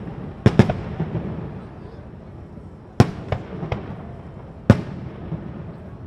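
Aerial fireworks shells bursting in loud, sharp bangs: a quick pair about half a second in, another about three seconds in followed by two smaller pops, and one more near the five-second mark, over a steady low rumble.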